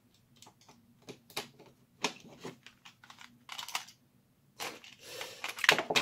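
Hard plastic parts of a toy dart blaster being handled and fitted into the shell by hand: a string of small clicks, taps and scrapes, with a louder scraping clatter about five seconds in.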